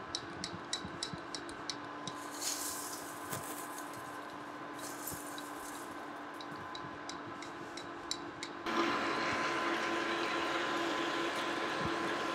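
Metal lathe running steadily with light clinks of metal chips. About nine seconds in, the drill bit in the tailstock bites into the spinning part and a louder steady cutting noise sets in.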